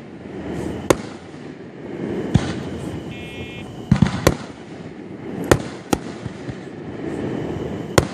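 Aerial firework shells bursting: about eight sharp bangs at irregular intervals, with three in quick succession around four seconds in.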